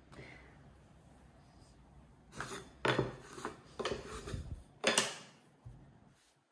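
Wooden number cards being slid out of a wooden teen board and set down on a wooden tabletop. After about two seconds of quiet come a handful of sharp wooden clacks and short scrapes.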